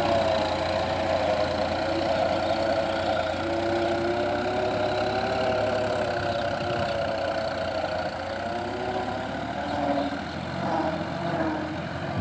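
Tractor's diesel engine running steadily under load while pulling a rotary tiller, a hum whose pitch wavers slightly; it grows a little fainter as the tractor moves away.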